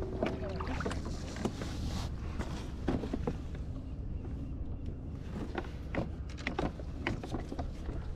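Fishing kayak on calm water: irregular small knocks, clicks and splashes against the plastic hull and gear, over a steady low rumble.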